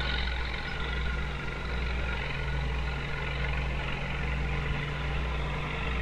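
Farm tractor engine running steadily, an even drone with no change in speed.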